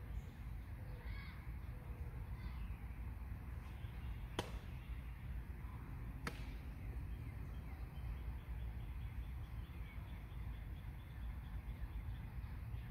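Open-air ambience on a ball field: a low steady rumble with faint bird calls. Two sharp pops stand out, about two seconds apart, a little after a third and about halfway through.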